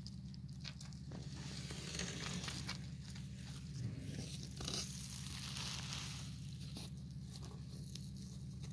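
Baby wild rabbits rustling and scratching in dry hay inside a cardboard box: irregular crinkling and crunching with small clicks. A steady low hum runs underneath.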